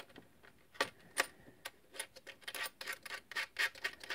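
Metal clicks and scrapes of a soldering iron's round screw-on connector being pushed into a soldering station's front socket and its locking ring turned tight. It makes a string of irregular sharp ticks.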